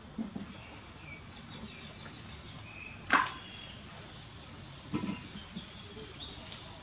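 A sharp knock about three seconds in, with softer thumps around five seconds and a few faint, short, high squeaks before the knock.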